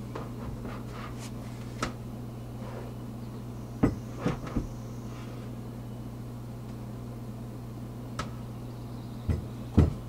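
Wooden beehive box and its metal-topped lid being handled: scattered knocks and bumps, the loudest about four seconds in and just before the end, over a steady low hum.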